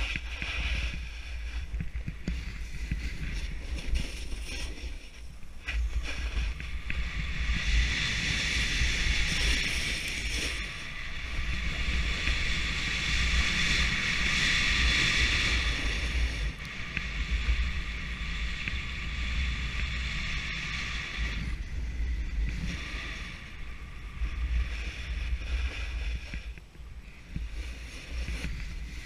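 Snowboard sliding and carving down a groomed run, the board scraping over the snow in a hiss that swells loudest midway, with wind buffeting the microphone as a low rumble.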